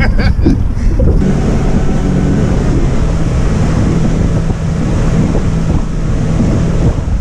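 Fishing boat's motor running steadily while the boat is under way, with strong wind buffeting the microphone and water noise; the steady running sets in about a second in.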